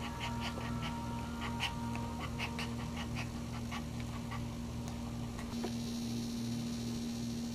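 A dog in labour panting in quick short breaths, about three or four a second, which stop a little over three seconds in, over a steady low hum.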